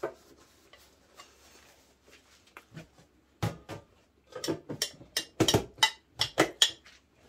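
Dishes and cutlery clinking and knocking at a meal table. The first half is quiet; then a quick run of about a dozen clinks and knocks comes in the second half.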